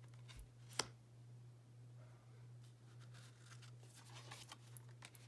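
Tarot cards being handled: a sharp tap as a card is set down about a second in, then soft sliding and rustling as the next card is drawn off the deck and laid on the pile. A steady low hum runs underneath.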